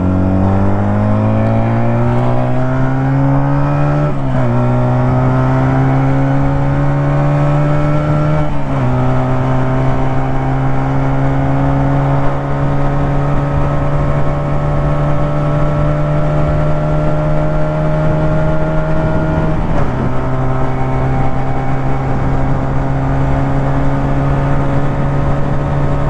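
Engine of a 2014 WMI 125 cc two-cylinder chopper motorcycle accelerating under throttle through the gears. Its pitch climbs, drops at three upshifts about 4, 9 and 20 seconds in, and rises only slowly after the last shift.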